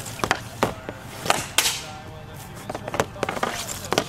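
A series of sharp, irregularly spaced clacks of a hockey stick and puck on a hard shooting surface, over background music.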